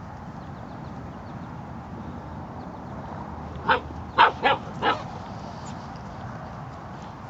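Black Russian Terrier barking: four short barks in quick succession about halfway through.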